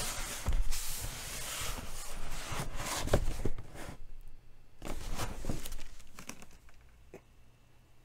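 A large cardboard box being handled and turned around on a table: the cardboard rubs and scrapes, with a few dull knocks as it is set down and shifted, dying away over the last second or two.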